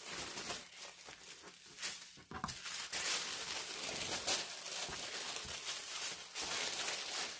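Tissue-paper sewing pattern rustling and crinkling as it is handled, unfolded and spread out flat on a cutting mat.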